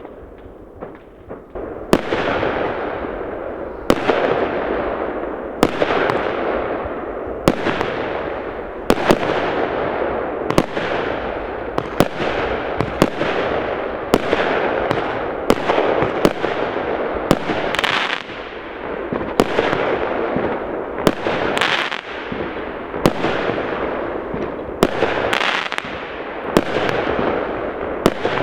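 Fireworks exploding: after a quieter first two seconds with a few small pops, a steady run of sharp bangs comes about once a second, each trailing off into a fading tail before the next.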